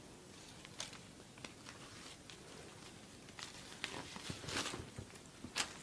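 Faint scattered taps and rustles of a small kitten pouncing and scrabbling on a bedspread, a little busier a few seconds in.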